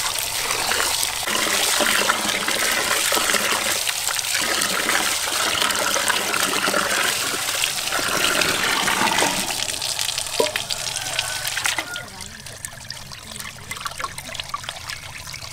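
Tap water running into a large pot while hands swish and rub rice in it. About twelve seconds in the running water drops away, leaving splashing and dripping as the cloudy rinse water is poured off over the pot's rim.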